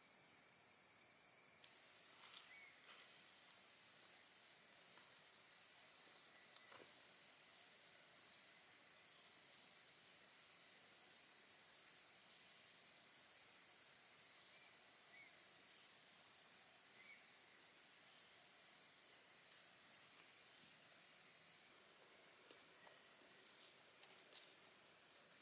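Steady high-pitched chorus of insects, louder from about two seconds in until near the end, with a brief pulsing trill in the middle and a few faint short chirps.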